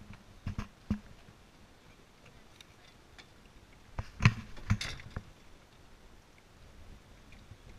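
Scattered knocks and clicks from people moving and handling gear in a small boat: a few light ones in the first second, and a louder cluster about four seconds in.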